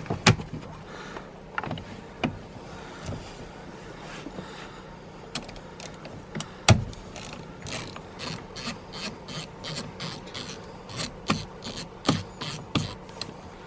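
Ratchet and hand tools working on a car's steering column while the steering wheel is being removed: a few sharp knocks, then a run of evenly spaced ratchet clicks, about three a second, through the second half.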